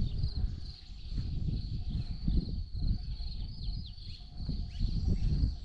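Gusts of wind buffeting the microphone, over a steady high chirping of crickets.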